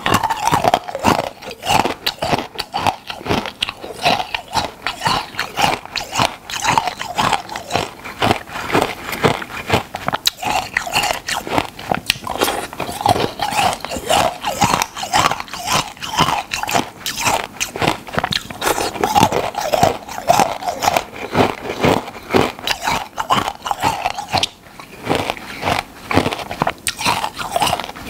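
Close-miked crunching and chewing of a hard, crunchy food, bite after bite in quick, continuous crackles, with a brief pause near the end.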